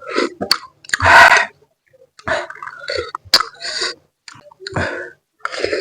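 Close-miked mouth sounds of a person eating spicy baso aci: a run of short, irregular bursts, the loudest a breathy burst about a second in.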